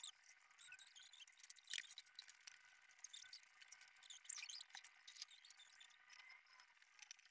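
Faint scratching of a pencil on drawing paper in short, irregular strokes, with a couple of slightly louder scrapes.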